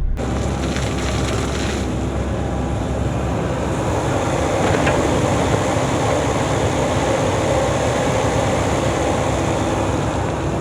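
Diesel engine of a midsize excavator running steadily, with a constant low hum under a broad rushing noise.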